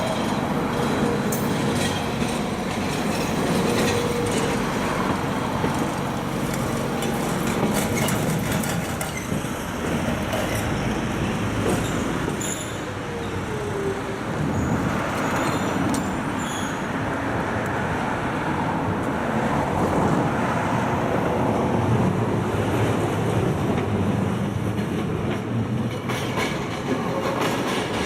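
A rail vehicle running past at close range, its wheels rumbling steadily on the track, with a brief falling squeal from the wheels about halfway through.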